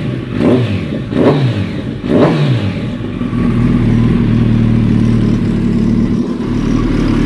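Motorcycle engine breathing through a Hindle carbon-fibre exhaust can, blipped three times in quick succession, each rev rising and falling, then settling into a steady run. The exhaust note is a little louder than a short megaphone.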